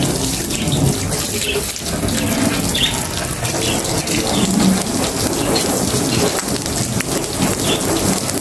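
Garden hose spraying a stream of water onto freshly waxed car paint on the fender and hood, with a steady hiss and splash of water hitting the body panels.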